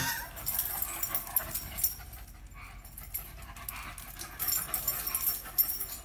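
Puppies panting close by, with light clicks and scuffles that grow louder near the end.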